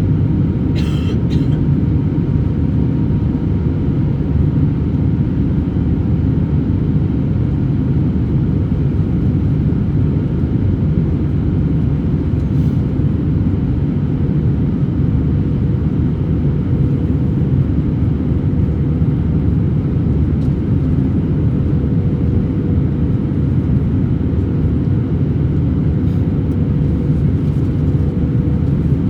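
Steady cabin noise of an Airbus A321-200 in flight: a constant deep rush of airflow and engine drone with a faint steady hum. A short, brighter clink about a second in.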